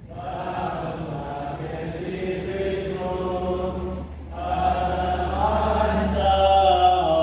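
Voices chanting a slow devotional hymn in long, drawn-out notes, with a short break about four seconds in.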